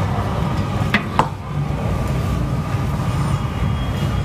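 A metal muffin tin knocks twice against the oven rack as it is slid into the oven, about a second in, over a steady low hum.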